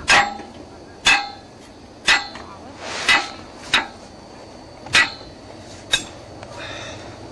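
Sharp metal-on-metal strikes, each with a brief ringing tone, seven in all at roughly one a second.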